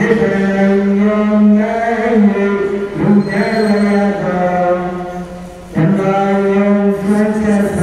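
A voice chanting in long held notes, dipping briefly about three seconds in and again just before six seconds, then carrying on.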